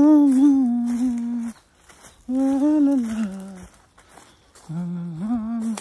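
A man humming a tune in three long held phrases, each about a second or more, with short pauses between them.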